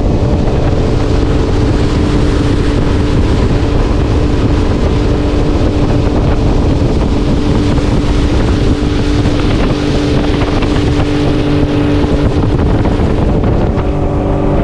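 Outboard motor of a small aluminium boat running steadily under way, with rushing water and wind on the microphone. The engine note changes near the end as the boat slows on arrival.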